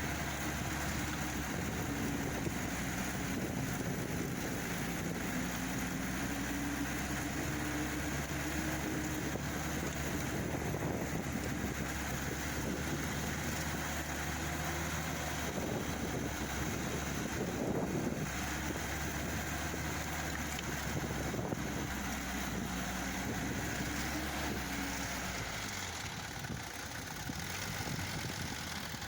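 Engine of a homemade rotary tiller (soil milling cutter) running under load, its pitch wavering up and down, a little quieter near the end.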